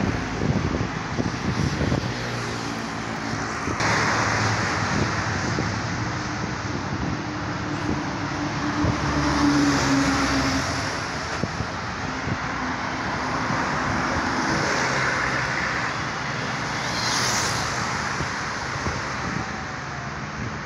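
Road traffic: cars passing by one after another on an open road, each swelling and fading as it goes past, with an engine hum from a vehicle about halfway through.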